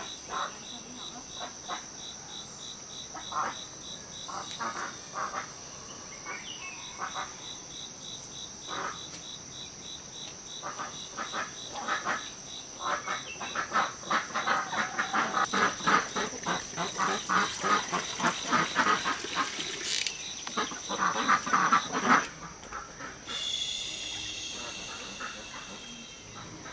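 Insects shrilling with a steady high buzz and, for the first few seconds, a fast pulsing trill, over farmyard poultry calling in rapid short notes that are busiest through the middle stretch.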